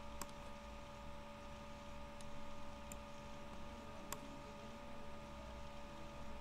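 A few sharp computer mouse clicks, about four spread out, over a steady faint electrical hum with a low rumble.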